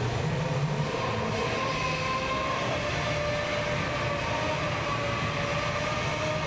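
Shopping mall ambience: a steady low rumble with faint held tones drifting slightly in pitch, and no clear voices.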